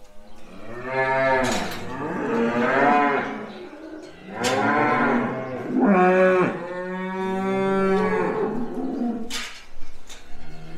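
Cows mooing: several calls, one after another, rising and falling in pitch, the last a long steady moo of about three seconds. Three short, sharp knocks fall between the calls.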